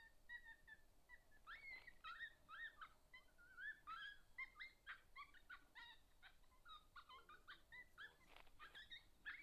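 Faint, high-pitched coyote yips and wavering howls, several voices overlapping in a quick run of rising and falling calls.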